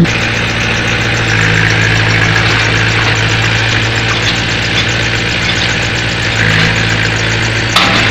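Hitachi excavator's diesel engine running steadily, with a sudden knock near the end.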